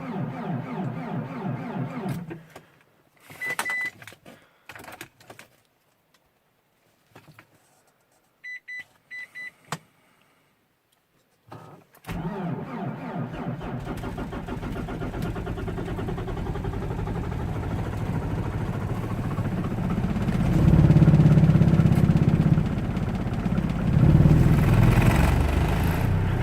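Diesel car engine cold-starting at about minus 30 °C. It catches suddenly about halfway through and runs roughly, then is revved twice near the end. Before it starts there is a near-silent stretch with a few clicks and short high electronic beeps, and a running sound cuts off about two seconds in.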